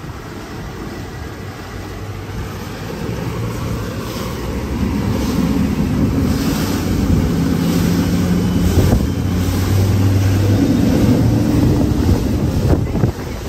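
X Shore electric boat accelerating at full throttle: water rushing along the hull and wind buffeting the microphone, growing steadily louder as speed builds.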